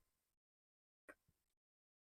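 Near silence: a gap between spoken lines, with no sound to be heard.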